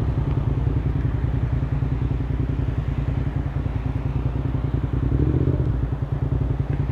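Motorcycle engine running steadily, a rapid string of low firing pulses, with a slight swell around five seconds in.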